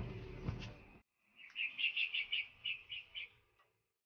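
A rapid series of about eight short, high chirps from a small animal, after a second of faint background noise with a few clicks that cuts off abruptly.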